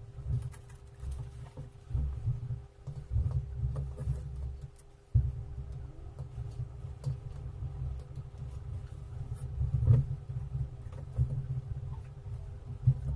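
Irregular muffled low bumps and thumps from hands working on a tabletop, with faint small clicks and rustles, as a wooden toothpick dabs acrylic paint from a plate onto a hand-held egg. The loudest bump comes about ten seconds in, over a faint steady hum.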